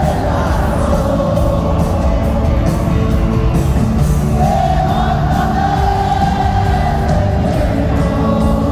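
Rock band playing live through an arena sound system, with a long held sung melody over the band, heard from the stands.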